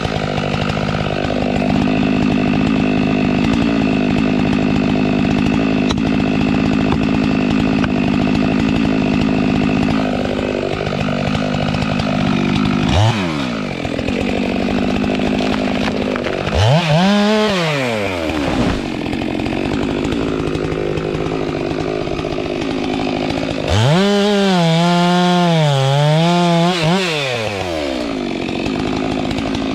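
Stihl MS462 two-stroke chainsaw running steadily under load for about twelve seconds, then revved up and let down several times, with an unsteady, wavering rev near the end.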